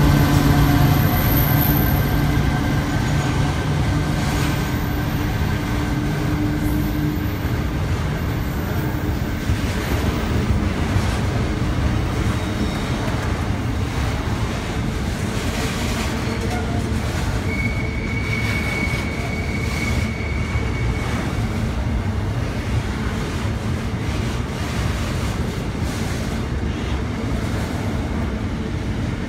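Container freight train rolling past: the steady hum of the diesel locomotives fades over the first several seconds, leaving the even rumble and clatter of the wagons' wheels on the rails. A little past halfway a brief high wheel squeal rises over the rumble.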